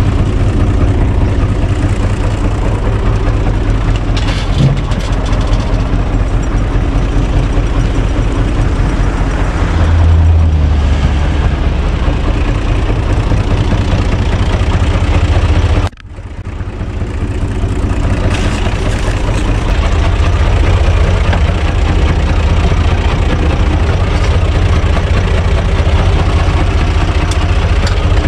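Universal U445 DT tractor's diesel engine running steadily, swelling briefly about ten seconds in. The sound drops out suddenly just past halfway and builds back over a couple of seconds.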